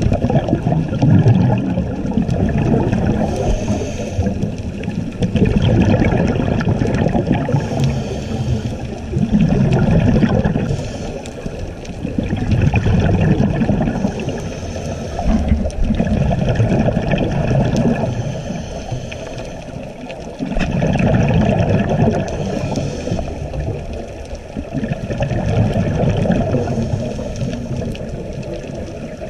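Scuba diver breathing through a regulator underwater: a hiss on each inhale, then a rush of exhaled bubbles, repeating every few seconds.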